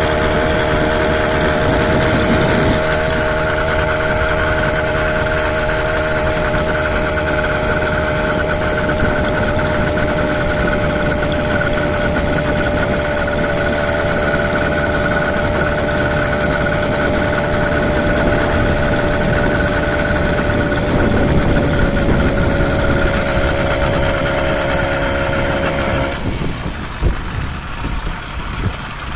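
A motorized bicycle's 80cc two-stroke engine runs steadily at cruising speed, with wind rushing over the microphone. Near the end the engine note drops away, leaving wind and road noise.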